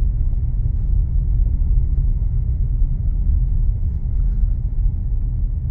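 Steady low rumble of a car being driven slowly, engine and road noise with no sharp events.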